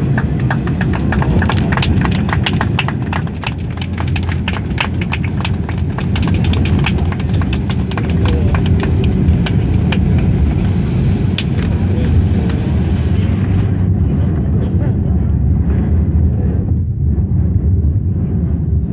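Inside the cabin of an Airbus A330-300 rolling along the runway after landing: a steady deep rumble of engines and wheels, with a fast, uneven clicking rattle. About two-thirds of the way in, the clicking and the upper hiss die away, leaving the rumble.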